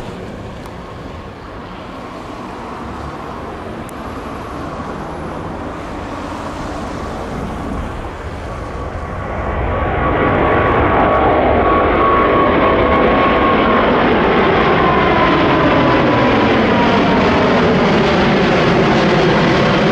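Boeing 777-200ER jet airliner departing under its two GE90 turbofan engines. The engine noise swells sharply about halfway through, then holds loud, and a whine slides gradually lower in pitch.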